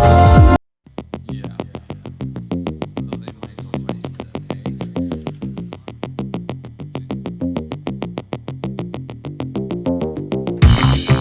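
Background electronic music: loud music stops about half a second in, then after a brief gap a quieter track with a fast, even ticking beat over a shifting low synth line. A louder track cuts in near the end.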